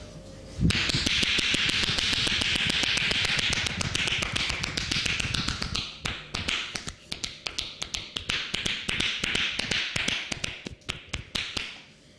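Rapid percussive massage: hands tapping and slapping quickly on the body in a dense run of sharp taps with a rushing hiss behind them. It starts about a second in and grows sparser and less even in the second half.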